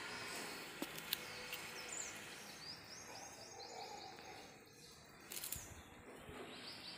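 Songbirds chirping faintly over quiet outdoor background noise, with a quick run of repeated high, falling chirps a few seconds in. A brief low rumble comes near the end.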